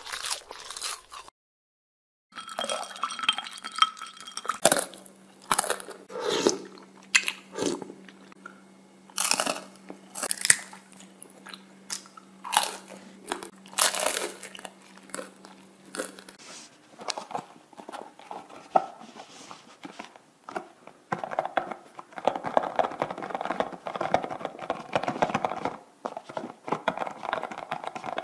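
Close-miked crunching and chewing as pieces of waffle cone are bitten, a sharp crunch every second or so. Near the end, fingernails tapping and scratching quickly on a cardboard tea box.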